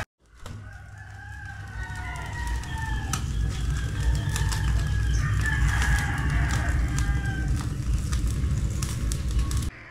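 Roosters crowing, two long drawn-out crows standing out over a steady low rumble.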